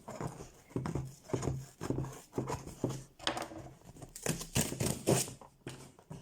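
A cardboard box and its packaging being opened by hand: irregular rustling, scraping and sharp clicks of handling and cutting, busiest about four to five seconds in.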